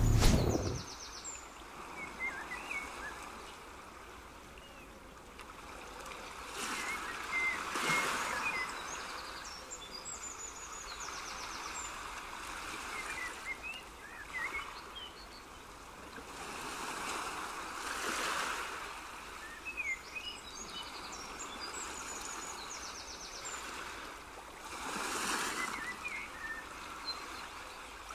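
Nature ambience of rushing water that swells and fades every few seconds, with small birds chirping over it. A brief low thump sounds at the very start.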